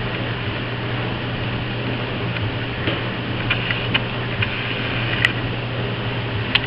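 Scattered light clicks and ticks, a few sharper ones near the end, from a small puppy tugging at a cardboard box on a tile floor, over a steady low hum.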